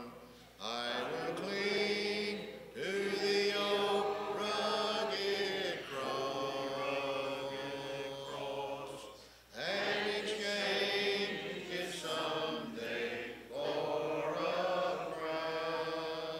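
Church congregation singing a hymn a cappella, with voices only and no instruments. The singing comes in long held phrases with short breaks for breath and fades out near the end.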